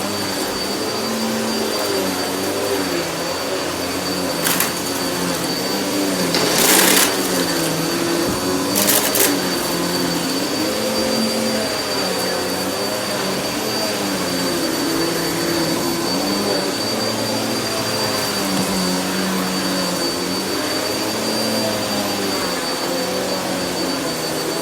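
Vacuum cleaner running steadily with a thin high whine, its motor pitch rising and falling over and over. About 4.5, 7 and 9 seconds in come short loud crackles: crunchy debris being sucked up.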